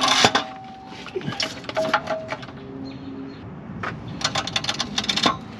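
Light metal clinks and knocks with a few short squeaks as a manual transmission on a low-lift transmission jack is worked into place under the car, followed by a quick run of clicks about four seconds in.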